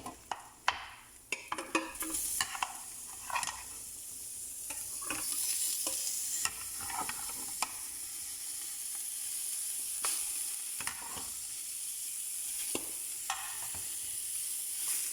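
A cooking spoon clatters and scrapes against a pot for the first few seconds as meat is stirred. Then comes a steady sizzle of the meat frying in hot oil with onions, louder from about five seconds in.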